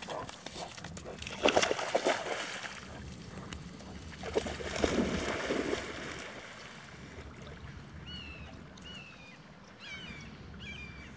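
A puppy jumping into a shallow pond and swimming, with splashing and sloshing water, loudest in two bursts in the first half and then quieter.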